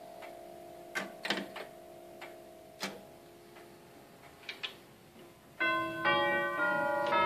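Herschede grandfather clock with nine tubular chimes: scattered clicks and ticks from the movement as the minute hand is turned forward by hand, over the faint fading ring of the tubes. About five and a half seconds in, the chime tubes start ringing a chime tune, much louder, as the hand reaches the hour.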